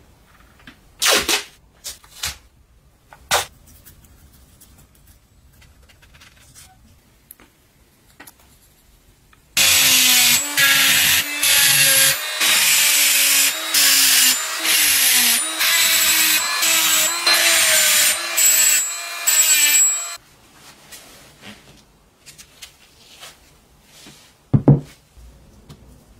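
Handheld rotary tool with a small pink grinding stone grinding the steel of a hammer head, a high whine over a lower motor tone that shifts in pitch as it is pressed on, in about ten seconds of short passes with brief breaks. A few light knocks come before it and a single thump near the end.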